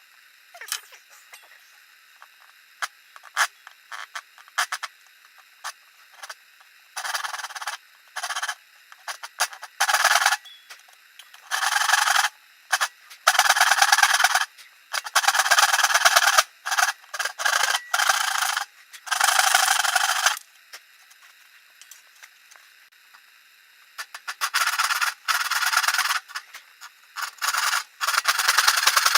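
Hand saw cutting an angled line through a wooden board: a series of rasping back-and-forth strokes in runs, with pauses and a few light ticks between them.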